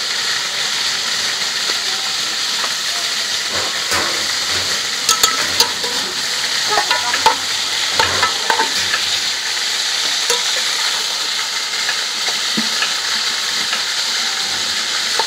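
Whole chickens frying in hot oil in an aluminium pot: a steady sizzle, with a few sharp clinks of metal tongs against the pot midway as the birds are turned.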